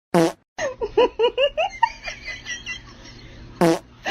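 A person giggling: a quick run of short, pitched laughs starting just after half a second in and trailing off, with a short loud vocal burst at the very start and another near the end.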